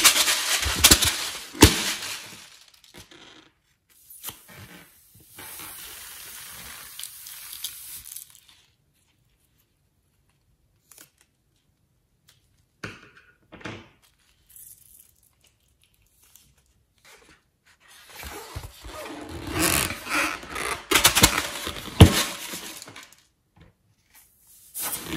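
Latex balloons being handled and cut open with scissors over a glass bowl of slime. There are two long spells of loud rustling, crackling noise thick with clicks, one at the start and one about three-quarters of the way through. Between them is a quieter stretch with a soft hiss and a few scattered snips and taps.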